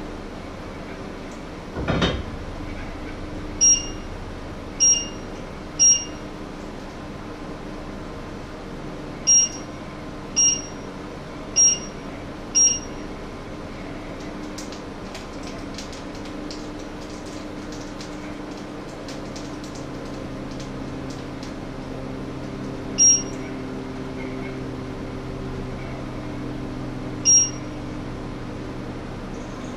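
Short high electronic beeps from an electric cooktop's touch controls as the heat is set: three quick beeps, then four, then two single beeps later, over a steady kitchen hum. There is one knock of a pot being set down about two seconds in.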